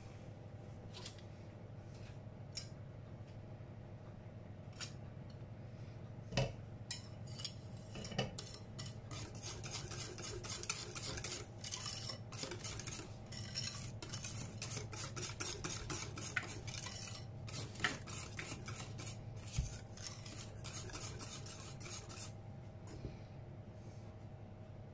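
A metal wire whisk beating thick chocolate cake batter in a glass bowl: rapid scraping and clinking against the bowl from about a third of the way in, stopping near the end. Before that come a few scattered knocks and scrapes of a spatula in the bowl.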